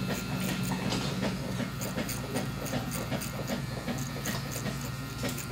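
BaBylissPRO FX3 electric hair clipper running with a steady low buzz, its blade cutting through hair with quick, irregular ticking.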